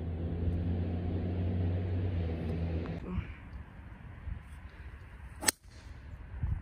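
A steady low motor hum runs and then cuts off abruptly about three seconds in. About two and a half seconds later comes a single sharp crack.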